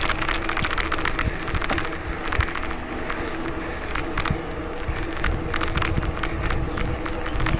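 Riding a bicycle: wind rumbling on the microphone over steady tyre noise, with scattered short clicks and rattles from the bike and mount as it rolls over the trail.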